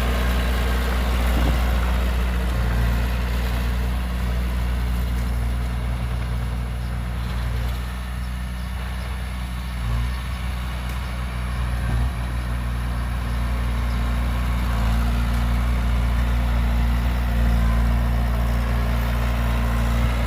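Heavy diesel earthmoving machine engine running steadily at low revs, easing off a little around the middle, with a couple of light knocks about halfway through.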